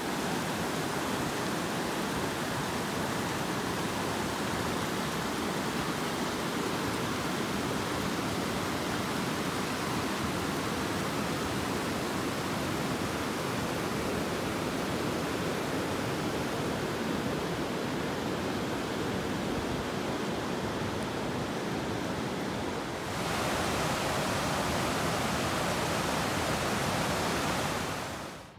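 Fast, deep river rushing over granite rapids: a steady rush of water. About 23 seconds in it turns louder and brighter, then cuts off sharply at the end.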